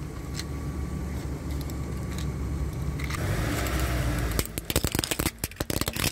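Car running with a steady low rumble as the tyre rolls forward on asphalt. From about four and a half seconds in, a rapid run of sharp cracks as a plastic phone holder with a suction-cup base is crushed under the front tyre.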